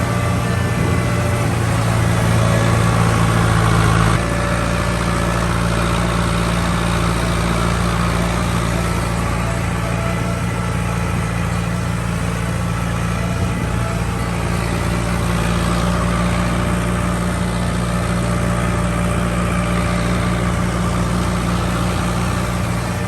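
Vehicle engine running at a steady speed, heard close up; its tone shifts and it gets slightly quieter about four seconds in.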